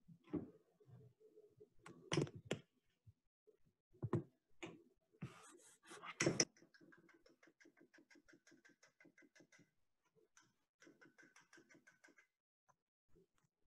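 A hand mixing wet bannock dough in a stainless steel bowl. A few sharp knocks against the bowl come in the first six seconds, the loudest about six seconds in. Then a quick, even run of stirring strokes follows, with a second short run near the end.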